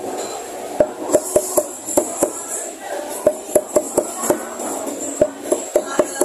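Steel cleaver chopping the claw tips off chicken feet on a wooden chopping block: sharp knocks in uneven quick runs, about three a second, after a short pause at the start.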